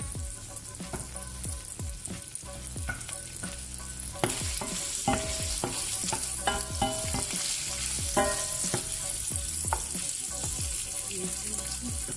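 Prawns sizzling in hot bacon fat in a frying pan while being stirred with a wooden spoon, with repeated knocks and scrapes of the spoon against the pan. The sizzle grows louder about four seconds in.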